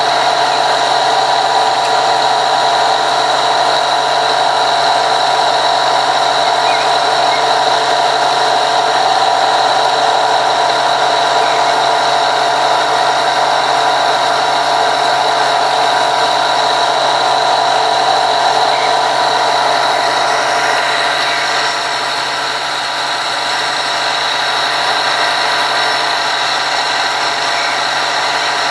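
A machine running with a steady, unchanging hum, dipping slightly in loudness a little past the middle.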